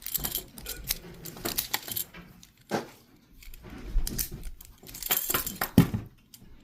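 Small metal objects rattling and clicking, handled by hand in a run of quick jingles and taps.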